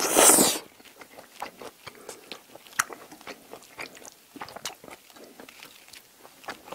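A person slurps up a mouthful of tomato spaghetti noodles in one loud, half-second slurp. Close-up chewing follows, with many small clicks of the mouth.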